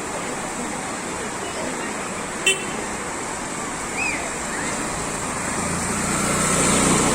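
A road vehicle approaching, its engine hum growing louder over the last second or two, over a steady rushing noise. A short horn toot sounds about two and a half seconds in.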